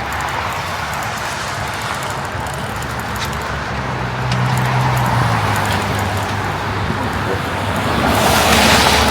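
Road traffic passing on a busy street. A vehicle's low engine hum falls slightly in pitch about four to six seconds in, and a louder whoosh of a car going by comes near the end.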